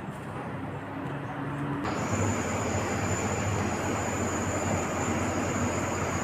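Air conditioner outdoor unit running with a steady hum and rumble. About two seconds in it abruptly gets louder and a steady high-pitched whine joins.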